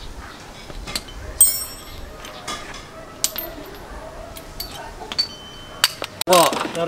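Metal hand tools and suspension parts clinking and clicking on a concrete floor, scattered knocks with one bright ringing clink about a second and a half in. Near the end the sound changes suddenly to louder voices.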